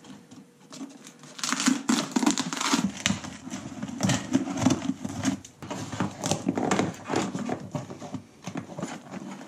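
Plastic wrap and tape crinkling as they are cut with scissors and pulled away. It is an irregular run of crackles that starts about a second and a half in.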